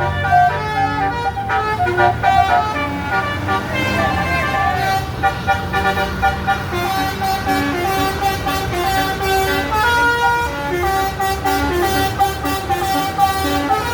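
Bus 'basuri' musical horn playing a tune of short stepped notes, over a bus engine's low rumble that is strongest in the first few seconds.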